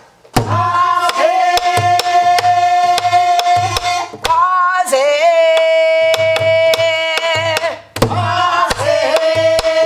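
A woman singing Korean Namdo folk song in three long held notes, each sliding in at its start, while accompanying herself on a buk barrel drum. The drum is struck with a stick and with the palm in a steady semachi rhythm.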